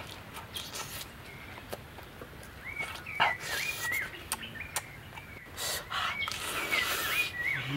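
A bird calling the same short, bending whistled note over and over, in two runs. Through it come crisp crunching and smacking clicks from someone chewing lettuce-wrapped roast pork with an open mouth.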